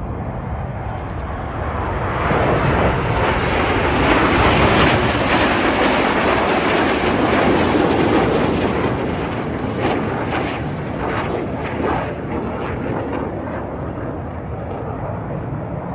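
Jet noise from a formation of BAE Hawk T1 jets, their Adour turbofans rushing past. It swells over the first few seconds, is loudest about halfway through, then slowly fades.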